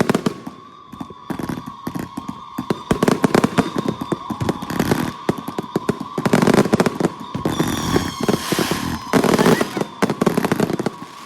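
Consumer firework cakes firing in rapid succession: many sharp bangs and cracks with stretches of crackle, over a steady high whine.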